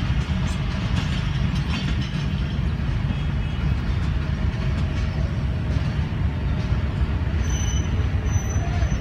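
Passenger train departing, its coaches rolling away on the track with a steady low rumble.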